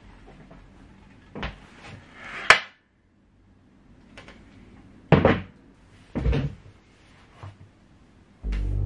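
A folding chair being handled and set down: a string of knocks and scrapes, the sharpest a click about two and a half seconds in. A low, steady droning hum starts just before the end.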